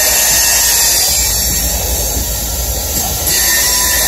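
Loaded coal cars of a freight train rolling past, their steel wheels giving a loud, steady, high-pitched squealing hiss of friction against the rail. The noise grows louder a little after three seconds in.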